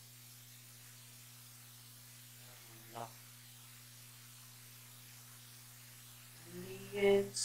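Low steady hum, with a brief vocal sound about three seconds in and a man's voice near the end.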